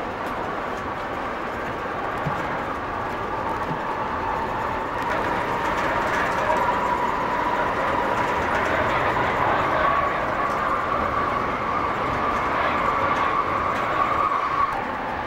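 Siemens-Duewag U2 light rail vehicle of the Calgary C-Train running along the track, heard from inside the front cab: steady rolling noise with a whine that grows and rises slightly in pitch about a third of the way in, then drops away near the end.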